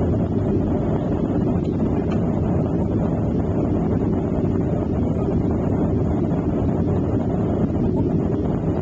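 Steady low rumble inside a Boeing jet airliner's cabin during the climb after take-off: engine noise and air rushing past the fuselage, even and unchanging.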